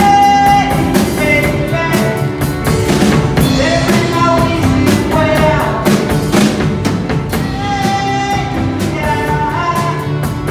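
Live rock band playing: drum kit keeping a steady beat under electric guitar and bass, with a melody line held and bent over it.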